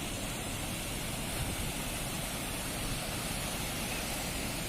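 Steady rush of a waterfall: an even hiss of falling water.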